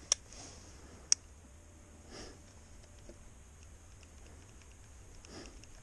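Two sharp clicks about a second apart from a KTM 690 Enduro R's handlebar switch being worked during a no-start. No starter motor or engine is heard turning over.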